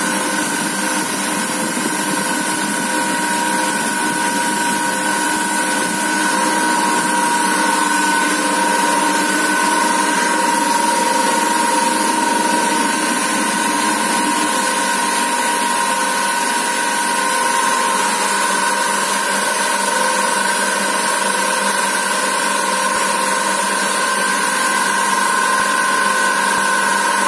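Industrial thread rolling machine running steadily: an even mechanical hum with a constant high whine and no breaks.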